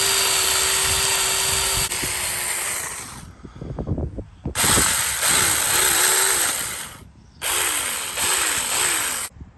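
Tomyvic 6-inch cordless mini chainsaw, on a 21-volt battery, running in three bursts with short pauses. The first is a steady whine. In the next two the pitch dips over and over as the motor slows under load, the chain biting into wood.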